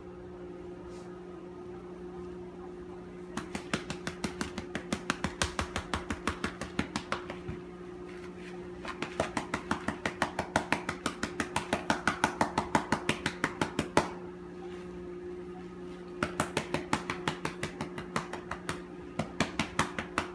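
A hand rapidly patting a cat's back and rump, about five soft pats a second in three long runs with short pauses between them. A steady low hum runs underneath.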